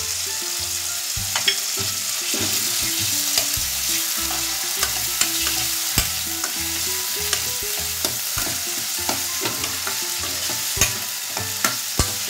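Chopped onion, tomato and ginger-garlic paste sizzling in hot oil in a pan while a steel ladle stirs and scrapes through it, with frequent sharp clicks of the ladle against the pan. The onion is being sautéd in the tempering until it turns red.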